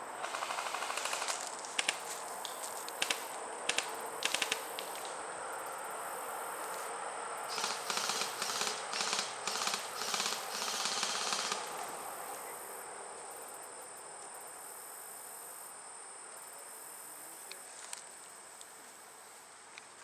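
Airsoft guns firing: scattered single shots and short strings in the first few seconds, then a dense stretch of rapid fire about eight to eleven seconds in, and one last shot near the end. A steady high insect drone runs underneath.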